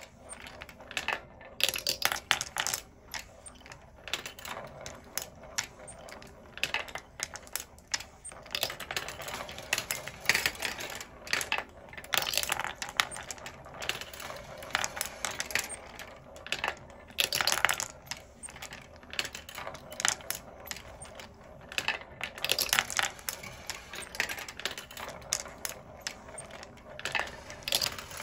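Wooden marble machine running: 17 mm glass marbles rolling along wooden tracks and clacking against each other and the wood as they drop through the mechanism, an irregular stream of clicks and rattles.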